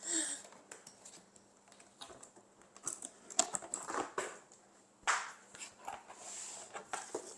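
Faint rustling and soft knocks of packaging being handled as a boxed hand mixer is unpacked, in a few scattered bursts.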